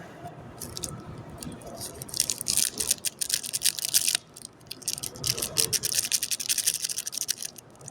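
Plastic wrapper of a Topps trading-card pack crinkling and tearing as it is opened by hand, a dense crackle in two spells with a short pause about four seconds in.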